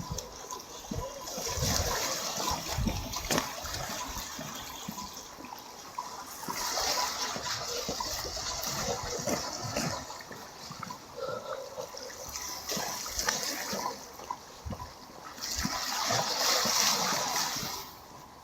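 Small sea waves washing in and draining back, a splashing hiss that swells and fades about every four to five seconds.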